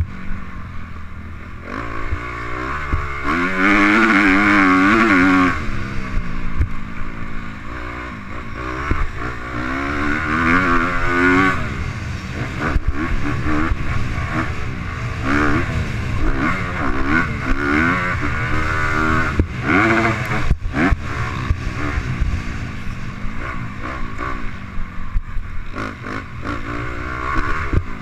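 Motocross dirt bike engine being ridden hard around a dirt track, revving up and down repeatedly as the rider accelerates out of turns and backs off into them. The strongest surges of throttle come about four seconds in and again around ten to eleven seconds in.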